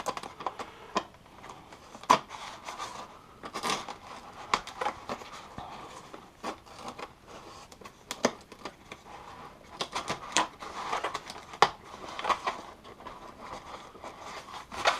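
Packaging being handled as a taped-in model-plane wheel is worked free: irregular crinkling, scraping and sharp clicks of tape, plastic and cardboard, many small sounds a second apart or closer.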